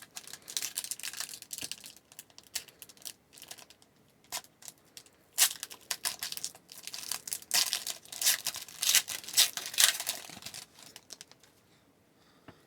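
Foil wrapper of a hockey card pack being torn open and crinkled in the hands, in irregular rustling bursts that die away about eleven seconds in.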